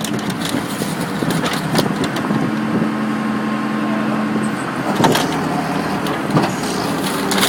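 Excavator's diesel engine running steadily, with a few sharp crunches and knocks from the car body being crushed, the loudest about five seconds in.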